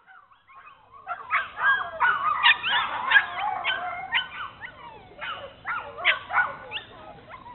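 Bernese Mountain Dog puppies yipping and whining at play, a busy run of short high-pitched calls that starts about a second in.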